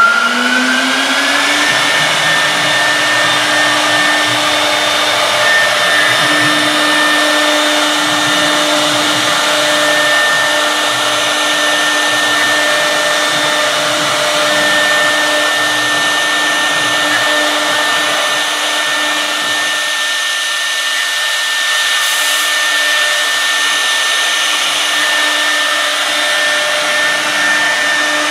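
Spindle of a 1325 woodworking CNC router rising in pitch to speed in the first second or two, then running with a steady whine as it cuts grooves in a wooden board.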